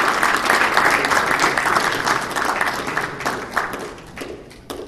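Audience applause: many hands clapping steadily, then dying away over the last couple of seconds to a few scattered final claps.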